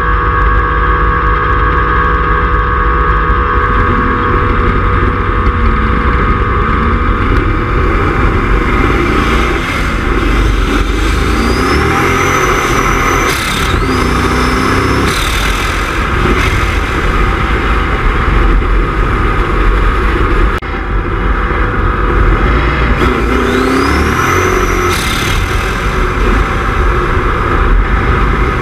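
Turbocharged Ford 351 Windsor V8 running under load with the bare turbo compressor inlet close by. Twice the turbo spools up into a high rising whistle that holds briefly and then cuts off sharply, along with the engine revving.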